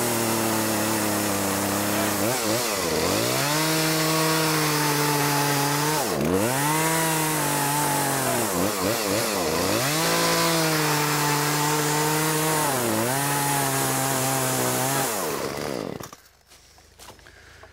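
Chainsaw cutting a row of kerfs into the end of a log to rough out a half dovetail notch. The engine holds a steady pitch under throttle, dropping and picking back up about four times between cuts, then shuts off near the end.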